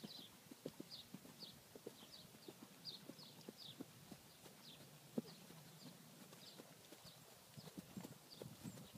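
Faint hoofbeats of a horse cantering on dry grass turf: soft, muffled thuds in a rolling rhythm. High, short chirps repeat over them.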